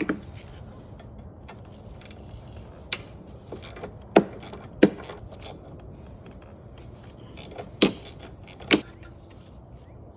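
Hand tools and small metal parts clicking and clinking as a lawnmower carburetor is unbolted: a handful of sharp, separate clicks, the loudest a little past four seconds in and again near the end.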